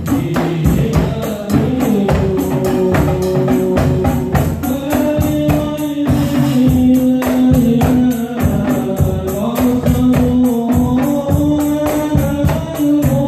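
Live marawis ensemble of frame drums, a large drum and a cymbal playing fast, dense interlocking beats under voices singing long held notes, amplified through Yamaha DBR15 active speakers and a mixer.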